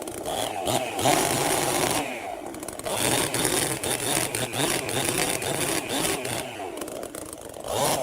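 Chainsaw running and revving up and down as it works, easing off briefly about two seconds in and again near the end.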